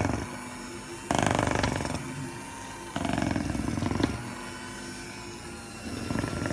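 Electric hand mixer running with its beaters whipping pandan sponge cake batter in a stainless steel bowl. A steady motor hum that grows louder for stretches starting about one second, three seconds and six seconds in.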